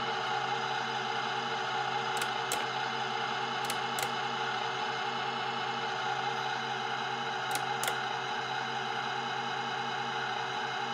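A steady electrical hum of several held tones, with three pairs of sharp clicks, each pair about a third of a second apart.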